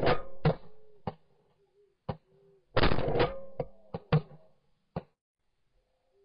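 Shotgun shots from several guns: a quick cluster at the start and another about three seconds in, with single shots scattered between and after, each trailing off briefly.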